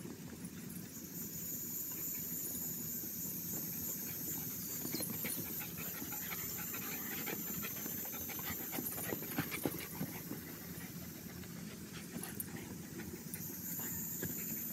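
Dogs panting and scuffling as they wrestle in rough play, with scattered small knocks and rustles.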